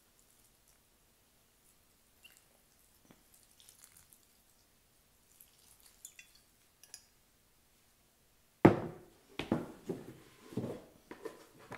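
Water poured from a plastic bottle onto potting soil in a plastic planter box, faint dripping and pattering. About two thirds through, a sudden loud thump and a run of knocks as things are handled on the table.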